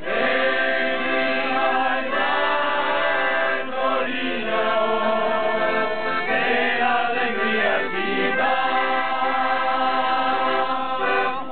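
A small group of men and women singing together, accompanied by an accordion.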